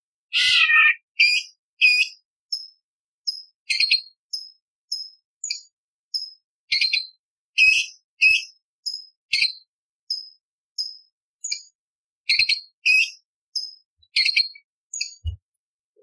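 Orange-bellied leafbird singing a rapid string of short, sharp, high whistled notes and chirps, nearly two a second, opening with a longer falling call. A brief low thump comes near the end.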